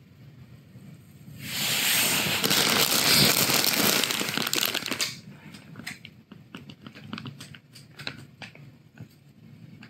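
Loud crinkling, rustling noise lasting about three and a half seconds, followed by a run of lighter rustles and sharp clicks.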